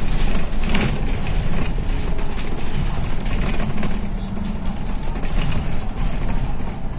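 City bus running, heard from inside the cabin: a steady engine and road hum with rattles and knocks, most near the start, as the bus slows in toward a bus stop.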